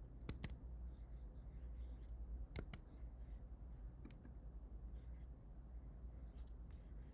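A few scattered small clicks, two pairs and a faint single one, with faint rustling over a steady low hum.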